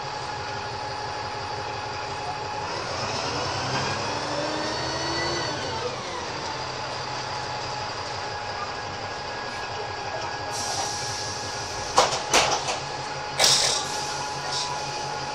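A DAF SB200 Wright Commander single-deck bus heard on board, its engine and driveline running with a whine that rises and then falls between about three and six seconds in. A hiss starts near the end, with a few sharp knocks and clatters, the loudest about twelve and thirteen and a half seconds in.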